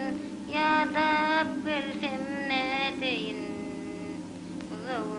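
Background music: a solo voice singing long, wavering, ornamented phrases over a steady low drone.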